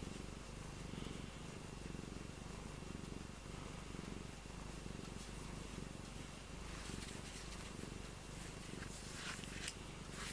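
Domestic cat purring steadily, close to the microphone, with a few brief scratchy rustles near the end.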